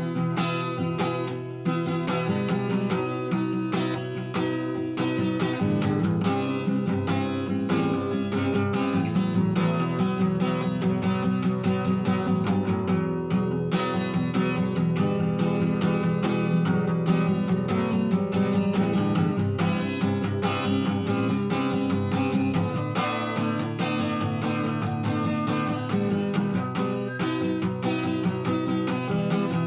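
Instrumental acoustic guitar music: many quickly picked notes over chords, playing without a break.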